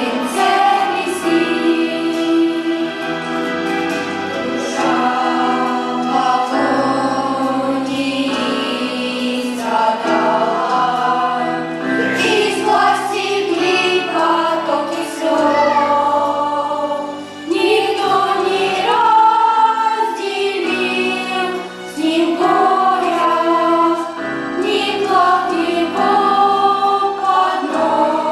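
Church choir singing a hymn in several parts, with phrases that pause briefly before going on.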